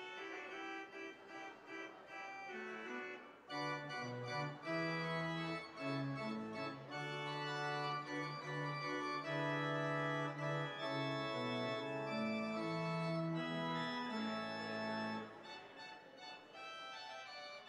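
Organ playing the postlude at the close of a worship service: held chords over a moving bass line, growing fuller a few seconds in and dropping softer near the end.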